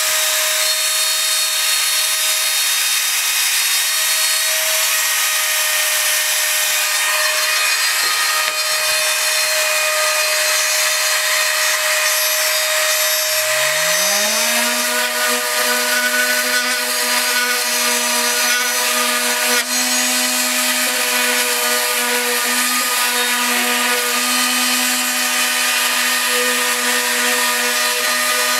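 A homemade CNC router's spindle whines steadily as it cuts plywood. About 13 s in, a Skil cordless orbital sander spins up with a quick rising whine and then runs steadily against plywood, with the router's steady whine still going underneath.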